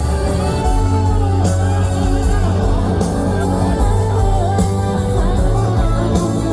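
Live gospel band music with a singing voice over a heavy bass.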